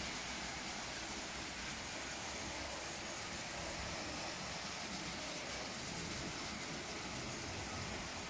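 Tinplate 0 gauge model train running steadily on tinplate track: a homemade rod-drive electric locomotive pulling a string of tin tank wagons, a continuous even running noise of wheels on the rails.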